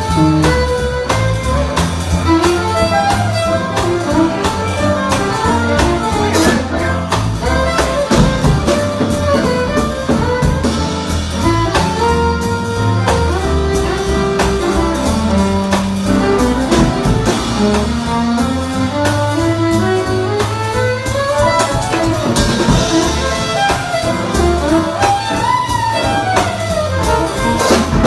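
Instrumental jazz music with no singing: a melody line winding up and down over a bass line.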